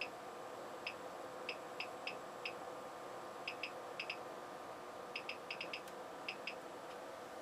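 Crown CDi1000 power amplifier humming steadily under a heavy test load on the bench, with irregular short, sharp ticks scattered through it, some in quick clusters.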